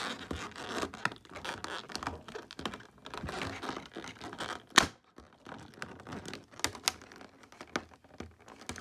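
Cardboard card packaging being handled and pressed: scratchy rustling and scraping, with one sharp snap about five seconds in and a few lighter clicks after it.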